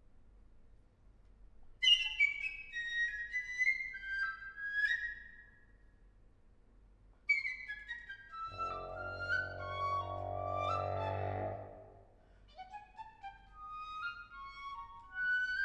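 Flute playing contemporary chamber music: short phrases of quick, sharply attacked high notes that mostly step downward, with pauses between them. About halfway through, a trombone enters under the flute with a long held low note lasting about three seconds, then the flute carries on alone.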